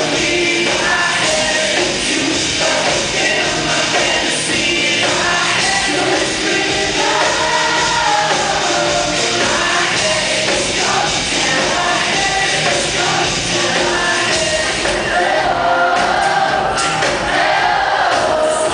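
Live pop/R&B song played loud through a concert PA: a male lead vocal sung into a handheld microphone over an amplified band with drums, heard from the audience in a large hall.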